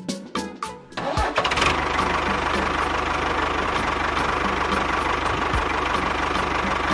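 A few plucked music notes, then about a second in an engine starts and runs steadily with a fast, even chugging.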